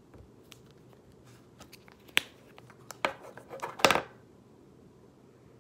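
EOS stick lip balm's plastic tube being handled and its cap pulled off to smell it: a few faint plastic clicks and rustles, with a sharp click about two seconds in and a cluster of louder clicks around three to four seconds in.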